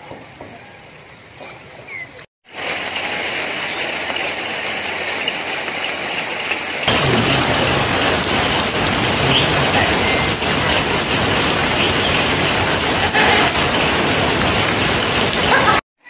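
Steady hiss of heavy rain falling. It drops out briefly about two seconds in, then comes back and turns much louder about seven seconds in.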